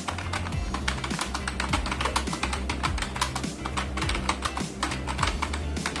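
Fast typing on a Lapcare computer keyboard: a rapid, irregular run of key clicks. Background music plays underneath.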